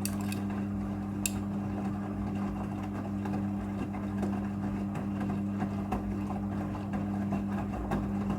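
Midea front-loading washing machine running its rinse cycle: a steady low hum over a noisy churning sound with small scattered clicks.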